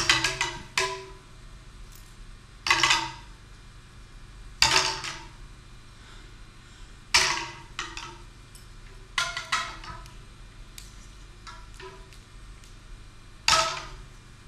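Live improvised percussion: a quick roll of sharp strikes at the start, then single strikes every one to two seconds, each ringing briefly.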